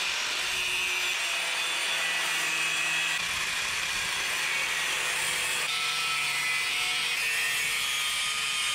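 Angle grinder with a cut-off disc cutting through a bicycle frame tube, a steady grinding screech under load.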